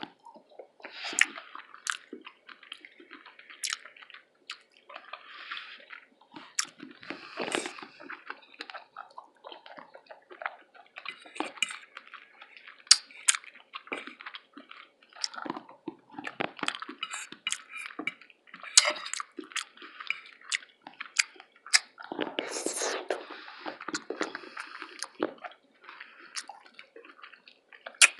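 Close-miked chewing, with wet mouth sounds and sharp lip-smacking clicks coming irregularly through the whole stretch.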